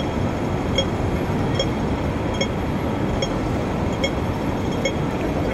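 Pedestrian crossing signal beeping slowly and evenly, about once every 0.8 seconds, over a steady hum of city street traffic. The slow beat is the wait signal given while the crossing light is red.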